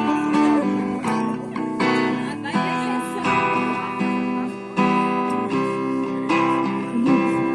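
Music led by strummed acoustic guitar, with chords changing every second or so.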